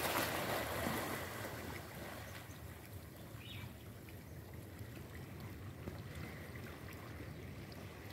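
Small waves washing against shoreline rocks, a steady wash that is a little louder in the first second.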